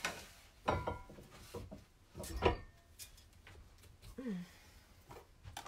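A few knocks and thuds as a book between pressing boards is slid into a cast-iron nipping press and the press is screwed down on it, the loudest knock about two and a half seconds in. A short murmur of a voice comes near the end.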